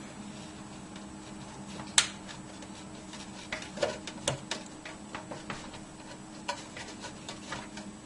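Light clicks and taps of hands working on computer parts in a PC case while a graphics card is being fitted: one sharp click about two seconds in and a cluster of lighter clicks around four seconds, over a faint steady hum.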